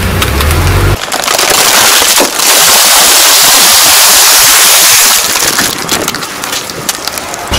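A bag of cheese crisps crackling and crunching as a heavy vehicle tyre rolls onto it and crushes it. A low engine hum drops away about a second in, and the crackling is loudest in the middle.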